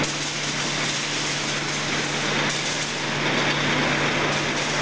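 Production-line machinery running steadily: a pan mixer and belt conveyors driven by electric motors, with a constant low hum under an even mechanical noise.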